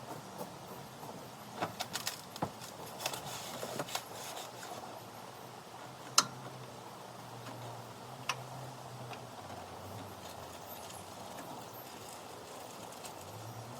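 Scattered sharp clicks and knocks over a steady hiss: a quick cluster in the first few seconds, then one loud click about six seconds in and a smaller one a couple of seconds later.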